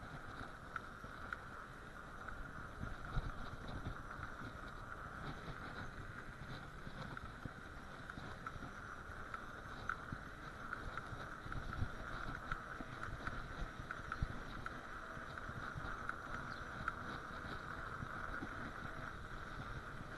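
Bicycle rolling over packed snow and ice: a rough, continuous rumble from the tyres and frame, with scattered knocks and rattles from bumps, over a steady high hum.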